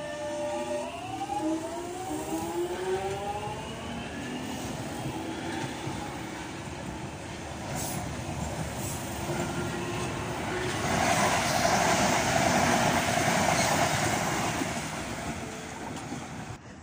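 Jubilee line 1996 Tube Stock train pulling away from the platform: its traction motors give several whining tones that rise in pitch as it accelerates over the first few seconds. Then the rumble of wheels on the rails builds and is loudest about eleven to fourteen seconds in, before easing off.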